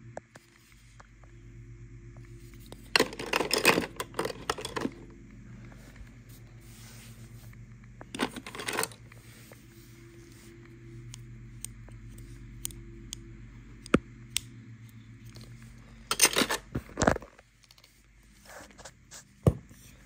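Plastic toy pieces clicking and scraping as they are handled against a plush toy dog, in three short bursts with a few single clicks between, over a steady low hum.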